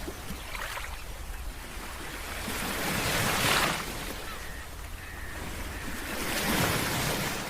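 Sea waves breaking on a beach: the surf swells up and falls back twice, about three seconds apart, over a steady low rumble of wind on the microphone.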